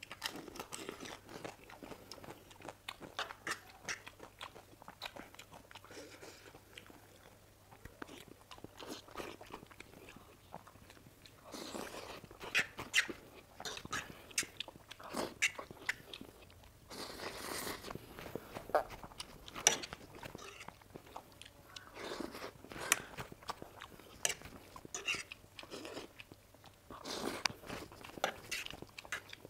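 Close-miked eating: a whole pani puri shell crunched and chewed, then forkfuls of Maggi instant noodles chewed, with many small mouth clicks and louder bursts every few seconds.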